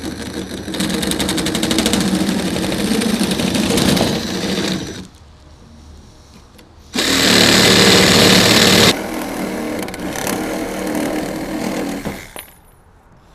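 Milwaukee Hackzall cordless reciprocating saw cutting through a steel PTO driveshaft tube, running with a fast buzzing rhythm. It drops away for about two seconds around the middle, comes back loudest for a couple of seconds, then runs on more quietly and stops near the end as the cut goes through.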